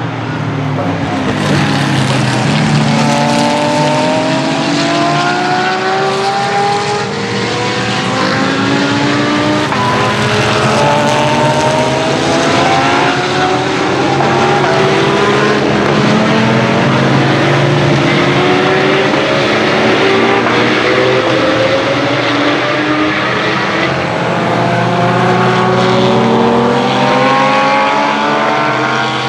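GT racing cars' engines accelerating hard, one after another. Their notes keep rising through the gears and dropping back at each upshift, with several cars overlapping.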